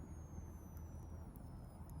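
Wood fire burning, with a few faint crackles over a steady low rumble.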